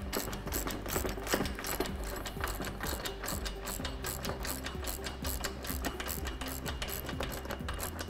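Socket ratchet clicking rapidly as a bolt is run down, over background music.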